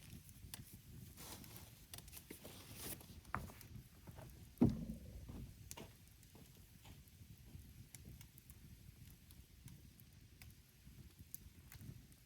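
Wood campfire crackling with scattered small pops over a low steady rumble; one dull thump about four and a half seconds in.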